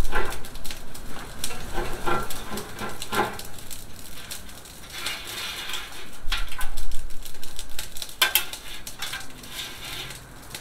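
Wired meat-thermometer probes being handled: scattered small clicks, clatters and rustling as the probe cables are untangled and worked by hand.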